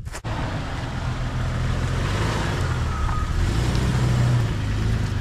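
A Jeep's engine running, a steady low drone under a broad wash of noise, starting abruptly a moment in and growing slightly louder toward the end.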